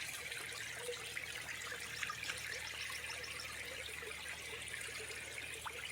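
Runoff water flowing steadily down a normally dry creek channel, swollen by a heavy downpour of over 7 inches in a few hours.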